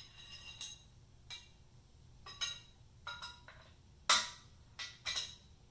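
Metal parts of a cam bearing installer clinking together as they are handled and fitted: a string of short, ringing metallic clicks, the loudest about four seconds in.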